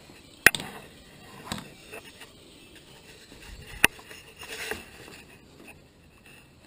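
Handling noise: two sharp knocks about three seconds apart, with lighter clatter and rustling between and after them, as things are moved about by hand.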